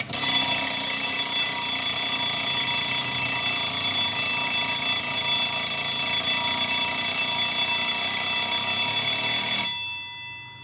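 Jaz mechanical alarm clock's bell alarm going off: a loud, continuous metallic ringing that starts just after the clock is handled and stops abruptly about a second before the end, with a brief ring-out.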